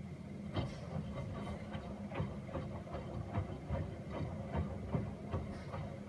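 Miele Softtronic W413 front-loading washing machine mid-wash: the drum motor hums steadily while the drum turns, and wet laundry and soapy water tumble and slosh inside. The slosh gives irregular soft knocks and splashes, several a second, from about half a second in.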